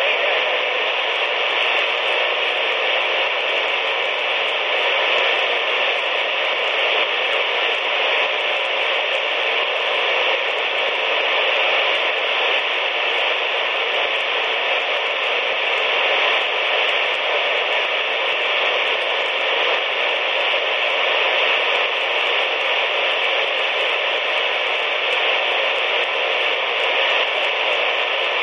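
CB radio receiver tuned to 27.185 MHz (channel 19) giving a steady hiss of static from its speaker, with no station transmitting.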